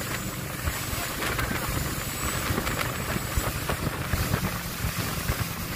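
Motorboat under way at speed: the engine runs under a steady rush of churning wake water, with wind buffeting the microphone.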